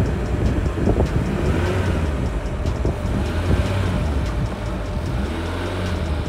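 K-swapped Honda Civic's four-cylinder engine running at a low, steady idle as the car creeps slowly forward over the driveway lip. No scrape from the splitter's skid plate stands out.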